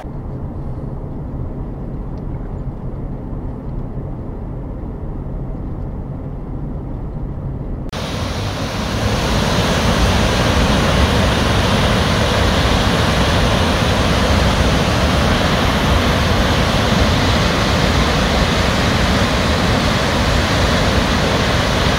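A camper van's low, steady rumble heard from inside the cab, then, at a cut about eight seconds in, the loud, steady rush of Firehole Falls pouring over rock.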